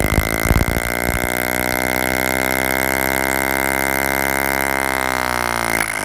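Big-bore (3/4-inch), short-stroke CO2 model engine running on compressed gas. A few separate pulses in the first second give way to a rapid, even beat that blends into a steady buzz with a thin high whine above it. The steady note breaks off just before the end.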